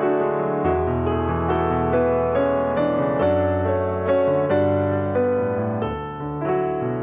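Background music: gentle piano playing a run of notes.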